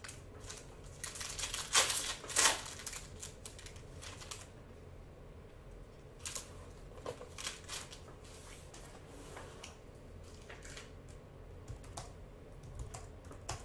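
Hands handling trading cards and foil card packs: scattered light rustles and clicks, the loudest a pair of sharp rustles about two seconds in.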